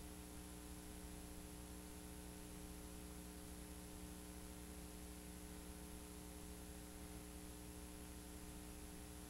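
Faint steady electrical hum with a layer of hiss, and no programme sound.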